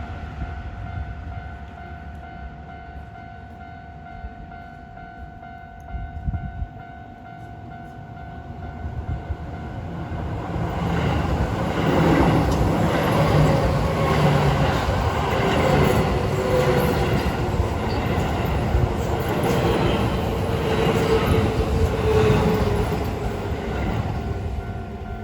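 Japanese level-crossing warning bell ringing steadily as a Keio Line electric train approaches and passes. The train grows loud from about ten seconds in, with wheels clacking over rail joints and a whine that slowly falls in pitch, then fades near the end while the bell keeps ringing.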